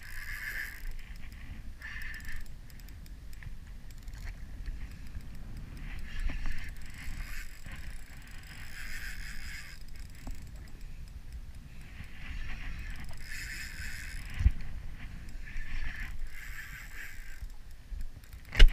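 Spinning reel being wound in short spells of whirring with pauses between, over a steady low rumble of wind and water on the microphone. A knock comes about two thirds of the way in, and a louder, sharper knock comes near the end.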